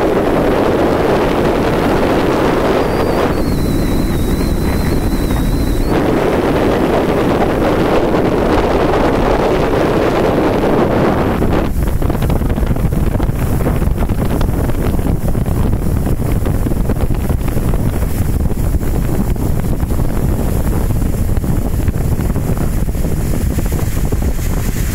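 Motorboat under way, with wind buffeting the microphone in a steady rush. About twelve seconds in, the rushing thins out sharply and leaves a lower rumble. A thin high whistle sounds for about three seconds, starting about three seconds in.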